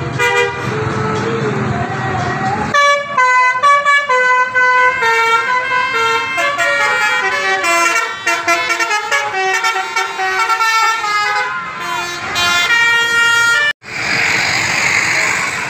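A 'telolet' multi-tone musical air horn on a tour bus plays a tune of rapidly changing notes. About 14 seconds in it cuts off and gives way to a steady rush of traffic noise.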